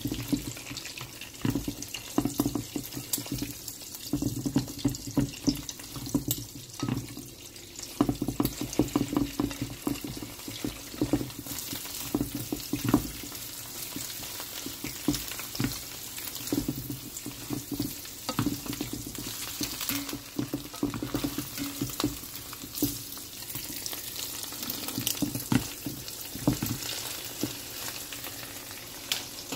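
Scrambled eggs being stirred or beaten with a utensil, which clicks and scrapes against the dish in quick irregular strokes over a steady sizzling hiss.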